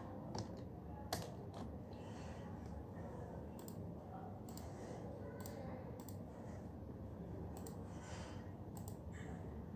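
Computer keyboard keys pressed one at a time: sparse, irregular clicks about a second apart rather than fast typing, the sharpest about a second in, over a steady low hum of room noise.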